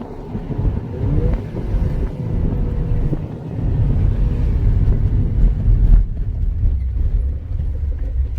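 Mini Cooper driving: engine and road rumble, getting louder about three and a half seconds in.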